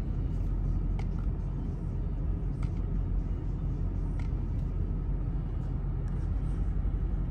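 2003 Mercedes-Benz SL500's 5.0-litre V8 idling steadily at about 750 rpm in Park, a low even rumble heard from inside the cabin.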